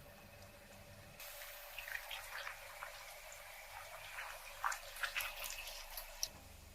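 Water dripping and trickling with small irregular splashes and clicks, faint throughout, starting about a second in and stopping abruptly near the end.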